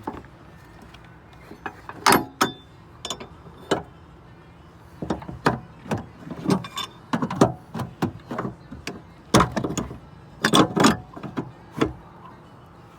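A run of uneven sharp knocks and clanks, about twenty of them, some leaving a brief ring: tools and parts being handled and set down at the end of work on an engine.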